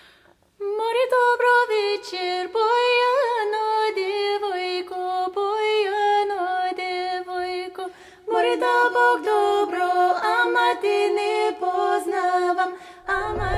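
Background music: women's voices singing a Balkan folk song unaccompanied, starting about half a second in. Near the end, loud engine and wind noise cuts in.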